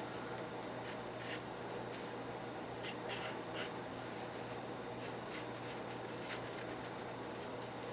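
Faber-Castell Pitt brush markers stroking on paper: a series of short, soft scratchy strokes in irregular clusters as colour is shaded in around a drawing.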